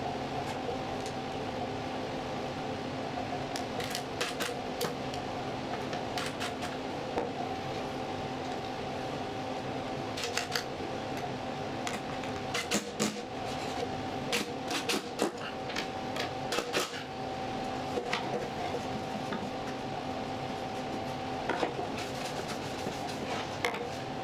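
Steady background hum with scattered light clinks and knocks, bunched in a few clusters, from screws and tools being handled on a plywood workbench.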